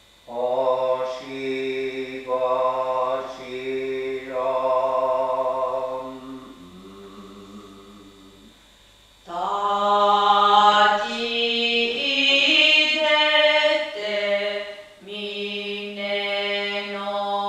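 A voice chanting in long held notes, phrase by phrase. After a short break about halfway through, the chant comes back louder and higher-pitched.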